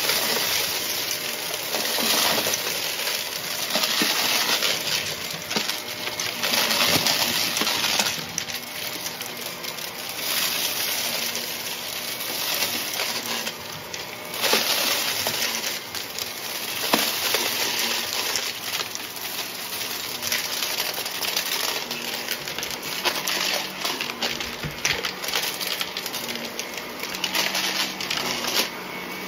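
Shark vacuum with its brushroll head running over debris-strewn carpet, the motor's steady hum under a crunching rattle of grit and small bits being sucked up. The crunch swells and fades in waves every second or two as the head is pushed back and forth.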